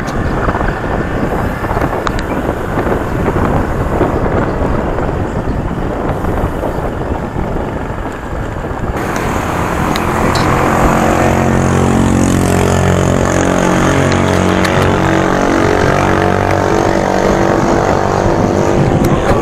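Wind rushing over the microphone and road rumble from a moving bicycle. About halfway through the sound changes, and a steady droning hum made of several held pitches joins and runs on.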